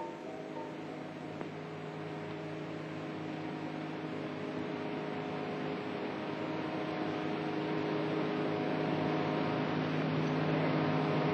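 A steady droning hum with hiss on an old film soundtrack, slowly growing louder.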